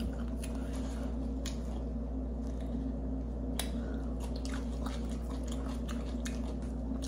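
Close-miked eating of a sub sandwich: biting, chewing and wet mouth smacks, with scattered soft clicks as the soft bread is pulled apart. A steady low hum runs underneath.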